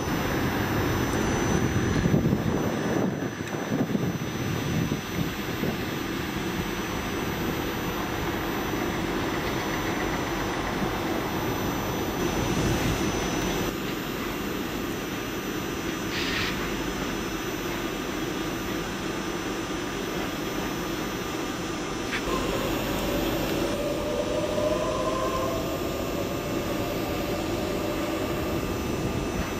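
Trains running at a station platform: a steady engine rumble throughout, with a faint rising whine over the last few seconds as another train moves.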